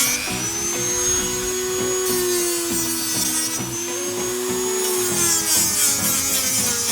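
Dremel rotary tool running at high speed and cutting into LEGO plastic: a steady motor whine that sags and recovers slightly in pitch as it bites, over a grinding hiss.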